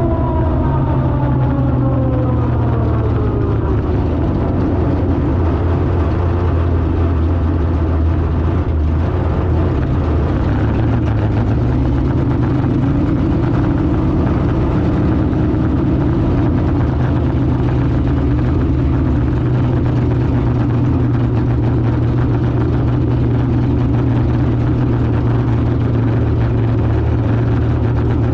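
Car engine coming down from high revs over the first few seconds, its pitch falling, then running steadily at low revs.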